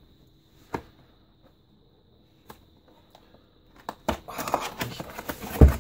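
Cardboard keyboard box being handled: a sharp tap a little under a second in, then from about four seconds in a stretch of scraping and rustling as the box is tipped and opened, ending in a dull thump.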